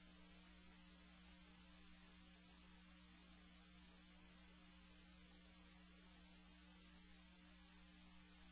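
Near silence: a faint, steady electrical hum with low hiss and nothing else.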